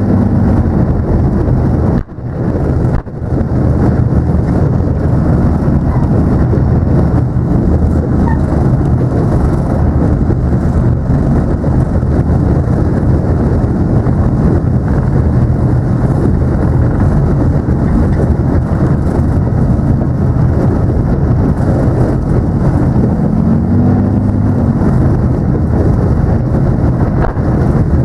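Loud, steady rumble of a heavy vehicle's engine mixed with wind buffeting the microphone, dropping out briefly twice a couple of seconds in and swelling briefly in pitch near the end.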